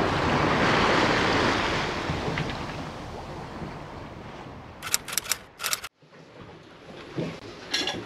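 Wind and waves rushing past a sailing catamaran under way, with wind buffeting the microphone, fading out over the first four seconds. A few sharp clicks follow, then near the end pots and dishes start clinking.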